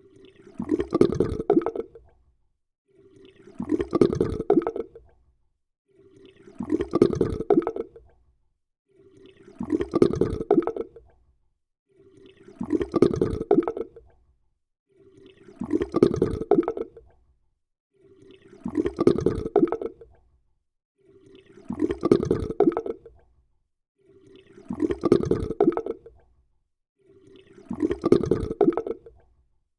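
Water gurgling in short bubbling bursts about two seconds long. The same gurgle repeats ten times, roughly every three seconds, with silence between.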